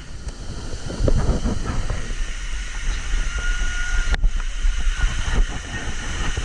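Steady rumbling rush of water with wind buffeting on a GoPro microphone, with irregular low thumps throughout and a sharp click a little after four seconds in.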